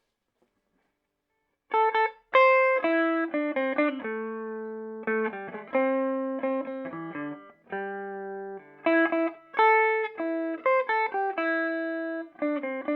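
Electric guitar played through a Peavey Bandit 112 combo amp on its clean channel in modern voicing, high-gain input. It plays a melodic line of picked single notes, some held and some in quick runs, starting about two seconds in.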